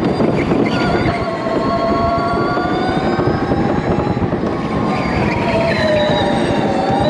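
Electric go-kart's motor whining as it drives, several stacked tones dipping and rising in pitch with speed, over a steady low rumble.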